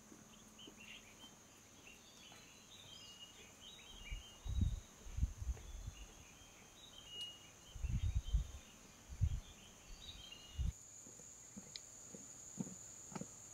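Outdoor woodland ambience: small birds chirping and twittering over a steady high-pitched insect drone, with several low thuds in the middle. About three quarters of the way in the bird calls stop, the insect drone gets louder, and light, regular footsteps through grass begin.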